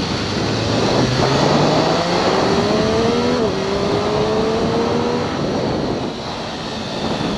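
MV Agusta F3 675's inline three-cylinder engine accelerating, its pitch rising, with an upshift about three and a half seconds in, then easing off about five seconds in, over road and wind noise.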